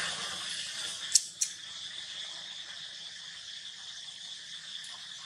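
A steady, high-pitched chorus of insects droning without a break. Two sharp clicks come close together about a second in.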